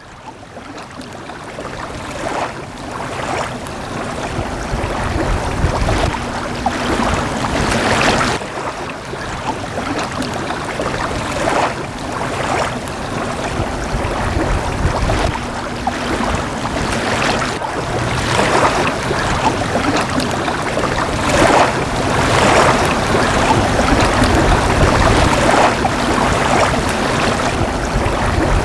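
Small lake waves lapping and washing against a rocky shore, in repeated surges, with wind on the microphone. The sound fades in over the first couple of seconds and stays fairly loud.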